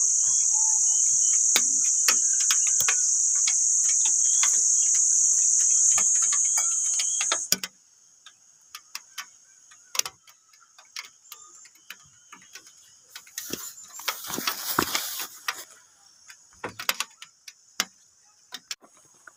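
A steady high-pitched insect drone, like crickets, that cuts off suddenly about seven seconds in. Throughout, a small twig campfire crackles and snaps in short sharp clicks, with a brief louder hiss of flaring or wind partway through.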